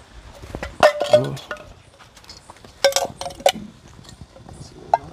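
A metal utensil clinking against a metal cooking pot: a few sharp clinks in groups, about one second in, around three seconds in and once near the end. Some of the clinks leave a short metallic ring.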